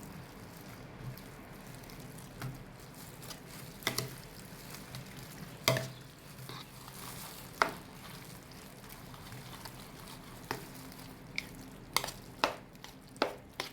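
Raw ground pork stuffing with egg, vegetables and milk being mixed in a bowl: a steady wet stirring hiss with scattered sharp knocks against the bowl, coming closer together near the end.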